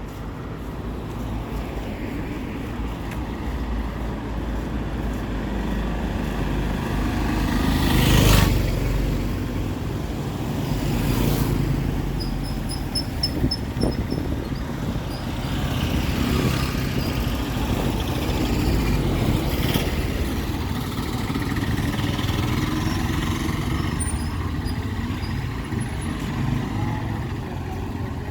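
Street traffic: motor vehicles running and passing, with one passing loudly about eight seconds in. Short runs of high chirps sound twice, about midway and near the end.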